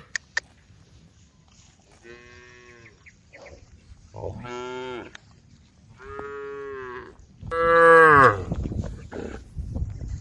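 Cattle mooing in a field: four separate long moos a couple of seconds apart. The last is the loudest and drops in pitch at its end.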